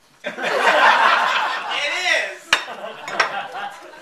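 A person's mouth-made imitation of Pop Rocks crackling and popping, voiced into a microphone, mixed with audience laughter. A sharp click comes about two and a half seconds in.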